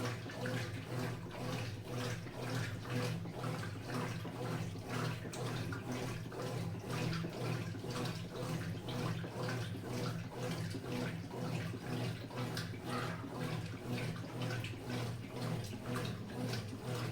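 Consul CWH11AB washing machine running its wash: water sloshing in a regular rhythm over a steady low motor hum.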